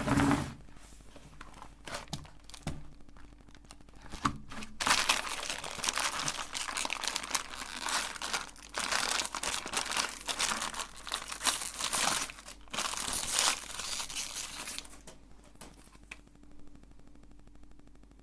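Crinkling and crunching as ice cream and sweets are worked through a meat grinder. It is loudest from about five to fifteen seconds in, then dies down.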